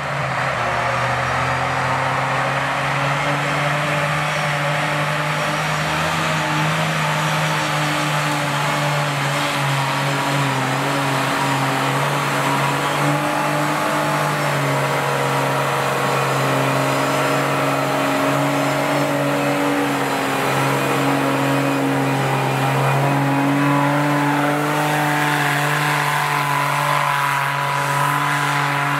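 Off-road 4x4's engine held at steady high revs, its pitch wavering only slightly.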